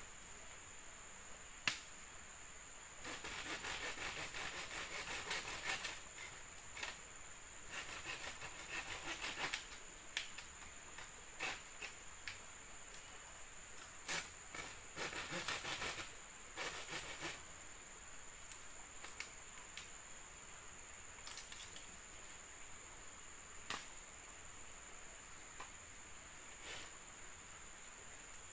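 Bamboo slats of a treehouse wall being handled and worked on: irregular scraping and rubbing bursts with scattered sharp knocks and clicks, the loudest knock about two seconds in. A steady high insect drone runs underneath.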